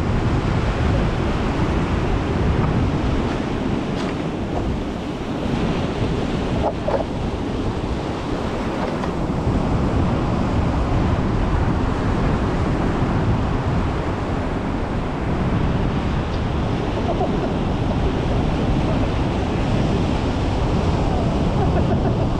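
Ocean surf washing onto a beach in a steady rush, with wind buffeting the microphone.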